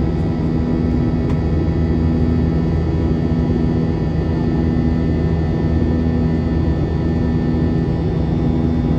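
Airliner turbofan engines heard from inside the passenger cabin in flight: a steady, loud drone with a constant low hum.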